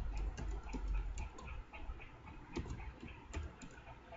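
Computer keyboard typing: irregular keystroke clicks, several a second, over a low hum that fades about a second in.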